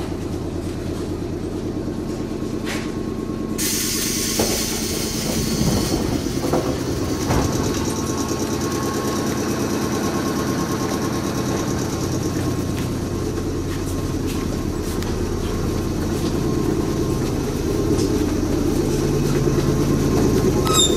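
JR West 105 series electric train arriving at its terminus and standing at the platform, with a steady low electrical hum. A hiss rises suddenly about three and a half seconds in, and a few faint knocks are heard.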